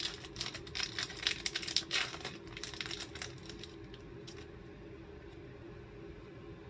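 Upper Deck hockey card pack wrapper crinkling and tearing as it is opened, a dense run of crackles for about three and a half seconds, then only faint handling of the cards.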